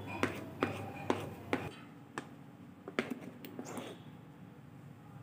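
A spoon knocking against a bowl as thick batter is stirred and scraped: four sharp, evenly spaced taps in the first second and a half, then a looser cluster of clicks about three seconds in.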